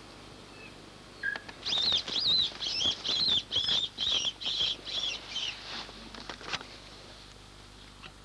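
An animal caught by a lurcher giving repeated high-pitched distress squeals: about ten harsh, wavering cries in quick succession over some five seconds, then stopping.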